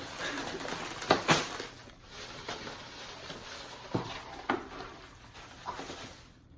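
Takeout food bags and containers being handled on a table: paper rustling, then a handful of sharp knocks as items are set down.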